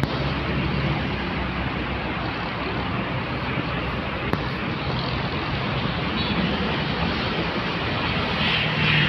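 Steady road traffic noise from cars passing on a busy multi-lane road, with a low hum throughout and one short click about four seconds in.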